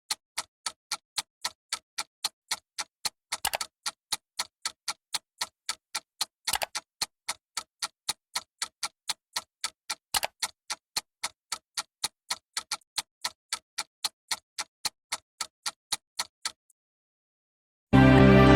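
Steady, evenly spaced ticking, about three ticks a second, stopping about 16.5 seconds in. After a short silence, loud music begins near the end.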